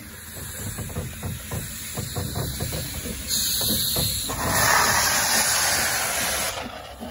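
Narrow-gauge steam locomotive letting off steam: a loud hiss starts about three seconds in, is loudest for a couple of seconds and then falls away, over a quick rhythmic low beat.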